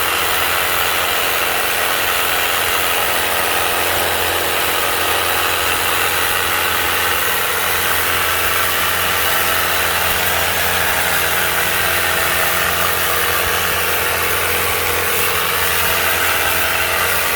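Colton pressure washer running steadily, its motor humming under the hiss of the water jet.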